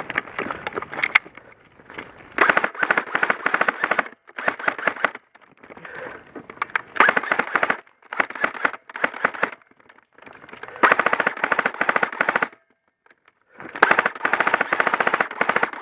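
Airsoft electric rifle, a custom Tokyo Marui G36, firing full-auto in repeated bursts of rapid clicking shots, about seven bursts in all with short pauses between them.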